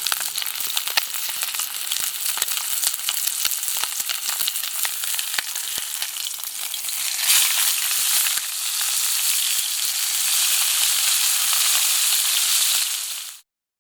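Food sizzling and crackling as it fries in a pan over a campfire. The sizzle grows louder and denser about seven seconds in, then cuts off abruptly near the end.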